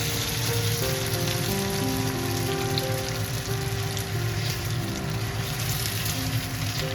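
Chicken thigh sizzling and crackling steadily as it pan-fries in plenty of oil, under background music with held notes.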